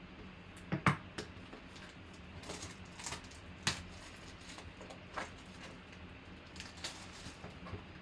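Plastic shrink-wrap being torn and peeled off a trading-card box, crinkling in short, irregular crackles, the sharpest about a second in and near four seconds.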